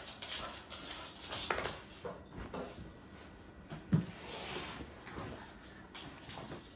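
Handling noises while unboxing: scattered knocks, scrapes and rustles of cardboard and packaging, with one louder knock about four seconds in.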